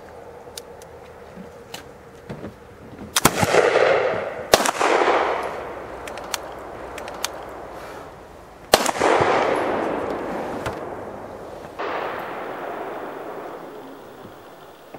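Large-calibre 18th-century flintlock rifle firing black-powder shots: loud sharp reports about 3 s, 4.5 s and 9 s in, each trailing off in a long fading echo, and a fainter report near 12 s.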